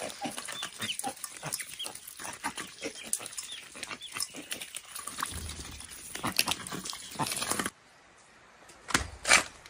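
Ducks dabbling in a metal bowl of wet feed: a dense run of rapid, irregular bill clicks with a few short calls. About three quarters of the way through it cuts off, leaving a low background broken by two short loud bumps near the end.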